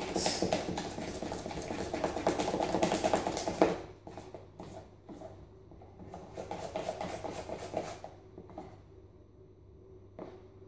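Pancake batter being stirred fast in a plastic measuring jug, a quick rhythmic scraping and tapping of the utensil against the jug as added flour is worked in to get rid of lumps. It goes loud for about three and a half seconds, then softer, and ends in a few separate taps.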